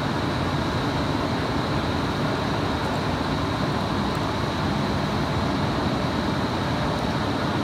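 Steady rushing background noise with a faint, constant high-pitched whine, unchanging throughout.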